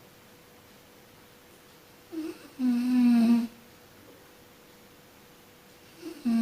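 A sleeping person snoring: about two seconds in, a short catch, then a steady buzzing snore on one pitch lasting about a second. The next snore begins right at the end, and it is quiet between them.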